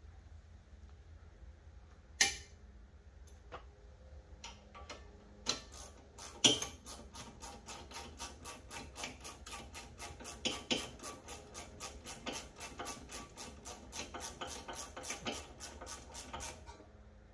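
A few sharp metal clicks and knocks, then a hand ratchet clicking in an even rhythm, about four clicks a second, for about ten seconds as a bolt is turned during brake caliper work. The clicking stops shortly before the end.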